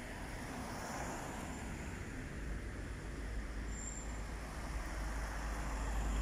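Street traffic: cars driving past on a town street, with a deep rumble that grows louder toward the end as a car comes near. A brief high squeak sounds near the middle.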